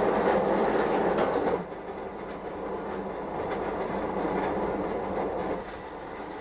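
Charcoal forge fire burning with a steady roar and scattered small crackles. It is louder for about the first second and a half, then settles at a lower level.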